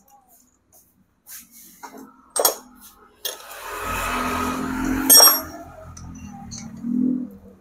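Metal clinks and clicks as a diesel injector and its adapter fittings are handled and mounted on a nozzle tester, with a sharp metallic clack about five seconds in. A steady mechanical hum with a hiss comes in about three seconds in and carries on to the end.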